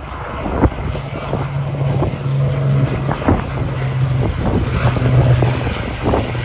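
Avro Lancaster bomber's four Rolls-Royce Merlin engines running as it flies over: a steady low drone, with gusts of wind rumbling on the microphone.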